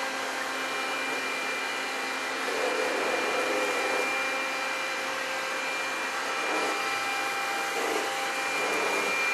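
Robotic floor-mopping cleaner running: a steady motor whir with a thin, steady high whine.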